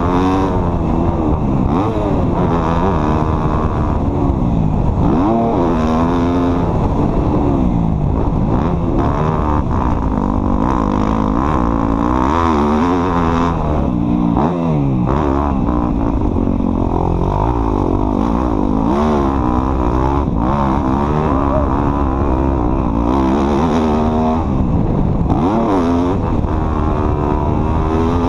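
Off-road vehicle engine revving up and down without pause, its pitch rising and falling every second or two as the throttle is worked.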